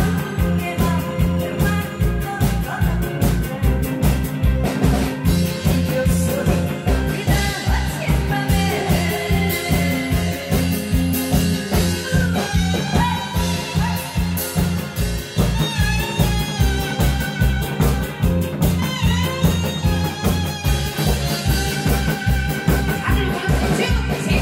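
A woman singing live into a microphone over loud amplified music with a steady beat.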